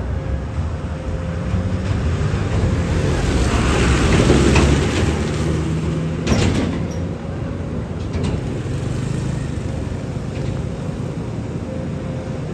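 Heavy vehicle or machine engine running steadily with a low rumble, swelling louder for a few seconds in the middle, with a single sharp knock just after the swell.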